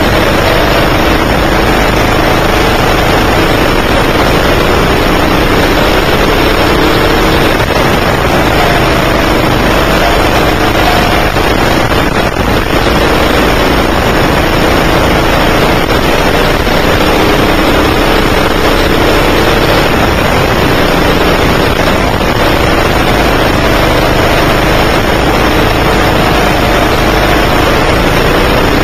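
A 9 hp kart engine running hard, heard close up from the driver's seat, its pitch rising and falling over and over as the throttle is worked.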